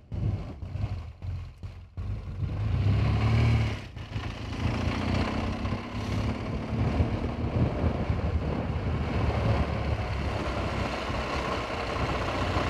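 BMW R1200GS flat-twin boxer engine running steadily at road speed. The sound cuts in and out in short gaps for the first two seconds, then runs on evenly.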